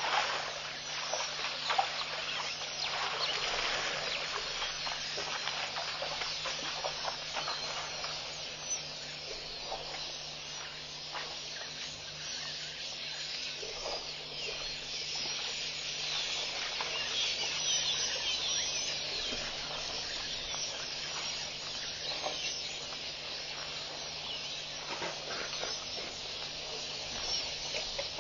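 Outdoor waterhole ambience from a wildlife camera's microphone: a steady hiss thick with small scattered chirps and clicks, over a low constant hum.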